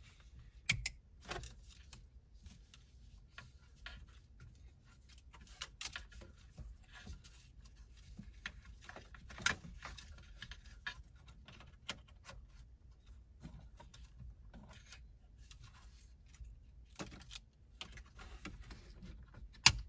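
Scattered plastic clicks and rattles of car stereo wiring harness connectors and cables being handled, with a louder, sharper click near the end as a connector snaps into place.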